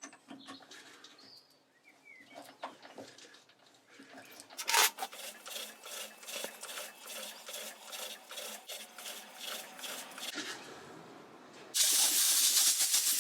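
Parting off a threaded mild steel bar on a Boxford lathe: quiet clicks, then a run of evenly repeated scraping strokes. Near the end a much louder, steady rasping cut starts abruptly.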